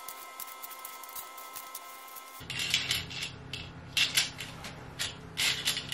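Drapery hooks clicking and clinking into the carriers of a ceiling curtain track while the curtain fabric rustles. It starts with a few faint ticks over a low hum, and from about two and a half seconds in the rustling and clinking come in a run of short bursts.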